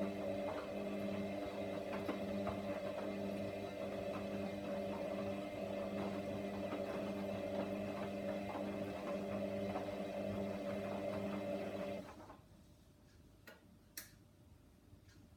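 Hoover washer dryer running partway through a towel wash, a steady hum with faint ticking. It cuts off abruptly about twelve seconds in, leaving near quiet with a couple of small clicks.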